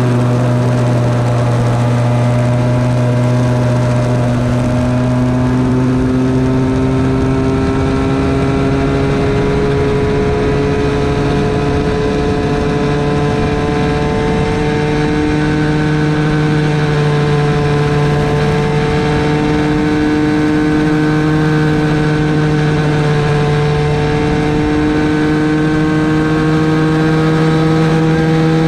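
Small single-cylinder engine of a Bambino go-kart, heard from onboard, running flat out at a near-constant high pitch that creeps slowly upward with a few small dips and steps. A steady rush of wind and tyre noise runs under it.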